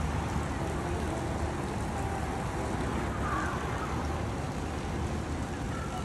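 Steady outdoor city ambience: a low, even hum of distant traffic.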